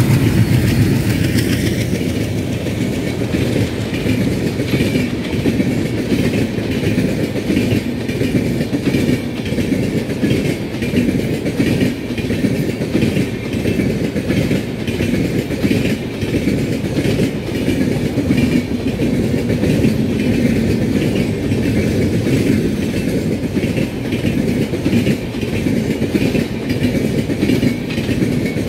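An express train's passenger coaches passing close at speed, with a steady rumble and the clickety-clack of wheels over the rail joints. About the first second and a half also carries the low drone of the twin ALCO WDM-3D diesel locomotives, which drops away as they pull past.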